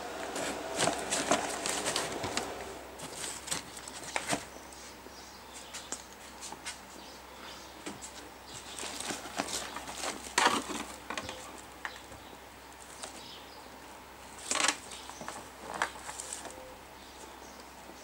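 Handling noise: scattered rustles, clicks and knocks of plastic, foam and cardboard being moved about by hand. The louder bursts come about a second in, near the middle and about three quarters of the way through.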